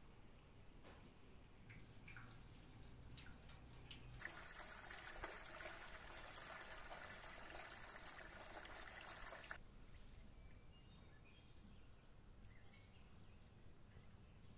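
Water trickling and splashing into the herb distiller's stainless steel cooling bowl. It starts and stops abruptly and lasts about five seconds in the middle. Otherwise near silence, with a few soft clicks and faint chirps.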